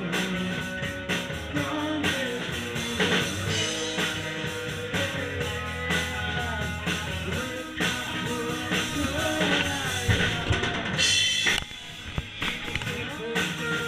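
Live rock band playing, with the drum kit (bass drum and snare) to the fore over bass and electric guitar.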